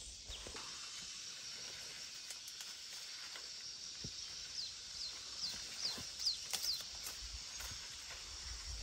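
Footsteps and leaves rustling as a person pushes through dense leafy plants and maize, over a steady high insect-like hiss. From about halfway, a run of short high falling chirps comes about two a second.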